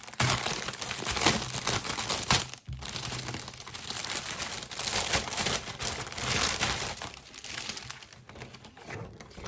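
Packaging crinkling and rustling as stencil sheets are handled and pulled out, loudest for the first couple of seconds, then a short break and lighter rustling that tails off.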